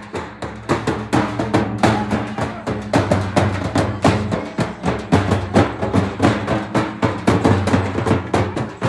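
Fast, loud drumming with rapid even strokes, over a steady low drone of held tones.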